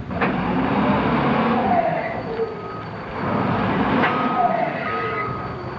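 Heavy machinery working with a loud rumble and metallic squealing that bends in pitch, in two loud stretches with a steady high whine in the second.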